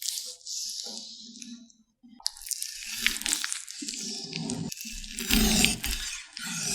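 Kittens chewing and crunching on a large chicken drumstick, with many sharp crunches and a short break about two seconds in; the crunching is loudest near the end.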